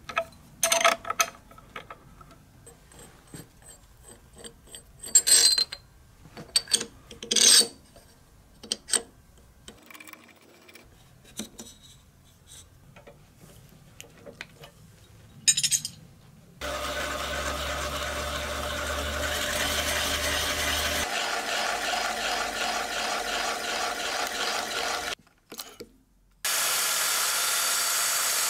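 Workshop tool sounds. First come scattered sharp metallic clanks and scrapes of a steel ring spanner on the stuck freewheel clamped in a vise. Next a power machine runs steadily for about eight seconds, humming low at first. About two seconds after it stops, a plunge saw on a guide rail cuts a plywood board with a steady high-pitched run.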